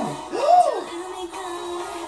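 K-pop girl-group song playing from a music video, with a note held steady through the second half.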